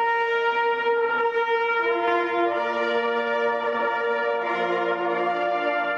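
Ensemble of hunting horns playing slow, long held notes: a single horn opens, and lower horns join one after another, about two seconds in and again near the end, building a sustained chord.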